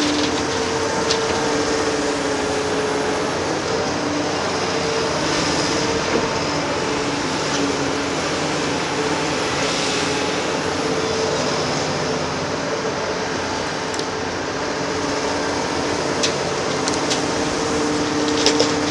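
Heavy diesel construction machinery running steadily: a constant drone with a low hum that fades in and out, and a few faint clicks near the end.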